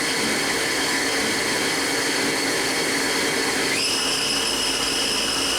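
Haas HS-1 horizontal machining center's spindle running in high gear at about 3,000 rpm with a steady whine made of several tones. A little over halfway through, the whine steps up in pitch as the spindle speeds up toward 4,000 rpm.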